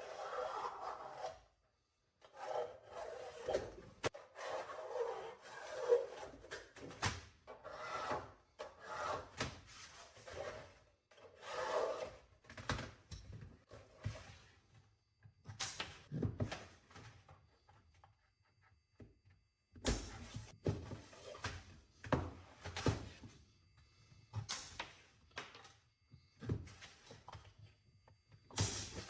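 Hand snips cutting and notching sheet metal in a series of short cutting strokes. These give way to scattered knocks and clatters as the cut pieces are handled.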